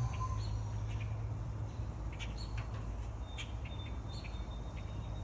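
Faint bird chirps and a thin high whistle over a steady low rumble, with a few small clicks.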